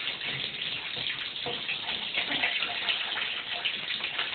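Water running steadily from a tap into a bathtub.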